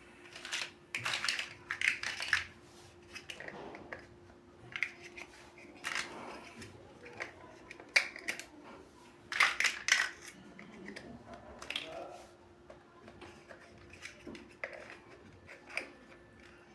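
Plastic building bricks being handled and pressed together: irregular clicks, taps and small rattles, over a faint steady hum.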